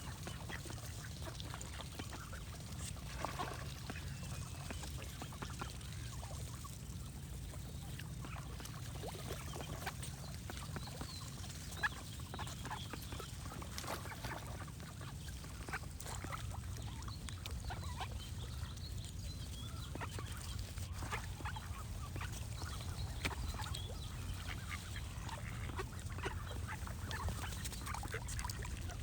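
Ducks quacking in short, scattered calls, with small birds chirping, over a steady low background rumble.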